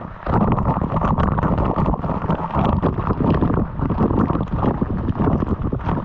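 Waterfall water rushing close to the microphone, loud and continuous, with irregular buffeting knocks on the microphone throughout.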